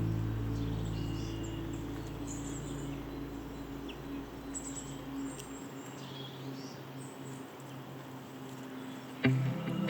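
A strummed acoustic guitar chord rings on and dies away over the first few seconds. Then comes quiet woodland ambience with a few faint, short bird chirps. Guitar music starts again near the end.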